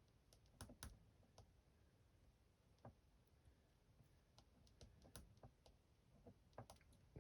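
Faint, scattered keystrokes of someone typing slowly on a computer keyboard.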